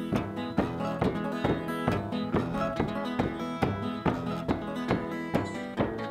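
Acoustic guitar strummed in a steady rhythm, about three strokes a second, in an instrumental passage between sung verses.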